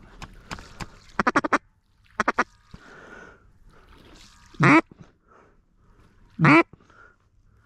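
Duck call blown in a series of short, quick quacks, then two loud, longer quacks about two seconds apart, calling to ducks flying over the decoys.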